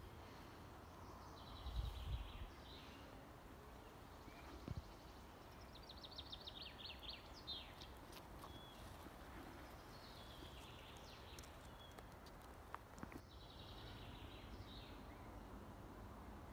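Songbirds singing faint, short trilled phrases at intervals over a quiet outdoor background, with a couple of low thumps about two seconds in.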